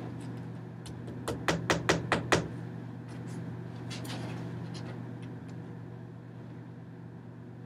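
A quick run of about six sharp knocks or taps, starting about a second in and lasting about a second, followed by a few faint ticks, over a steady low hum.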